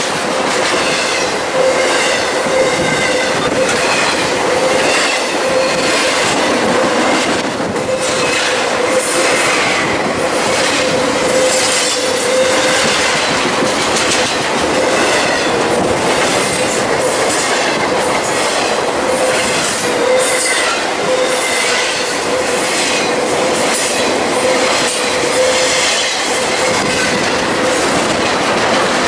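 Intermodal freight train of truck trailers on flatcars rolling past fast, its wheels clicking over the rail joints in a steady rhythm, with a steady squealing tone from the wheels.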